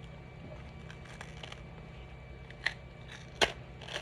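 A few short, sharp plastic clicks and taps from a freshly finished 3D-printed slide being handled at the printer, the loudest about three and a half seconds in. They sit over a steady low hum.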